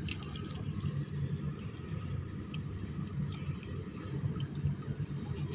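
Small splashes and drips of water as a hooked eel thrashes at the surface, over a steady low rumble.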